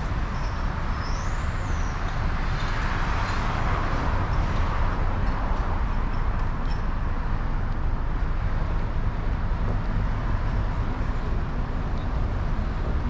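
Steady city street traffic, cars running past with a low rumble. About a second in, a brief high whistle rises and falls.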